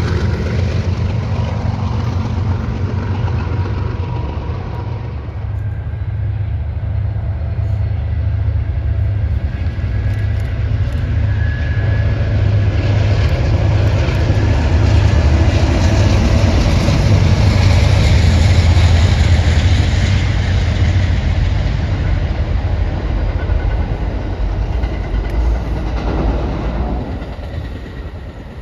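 Diesel trains passing. First a freight train's locomotives run at low steady rumble, then an Amtrak passenger train led by two diesel locomotives goes by with a steady low engine drone and wheel-on-rail noise. The passenger train builds to its loudest about two-thirds of the way through and fades near the end.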